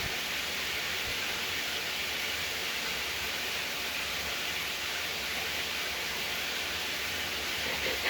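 Shower water running, a steady even hiss.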